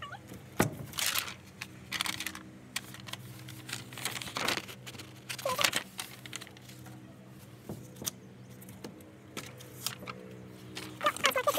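Sheets of paper rustling and crinkling as they are pulled off a cork pin board, in several short bursts with a few light clicks. A cat starts meowing near the end.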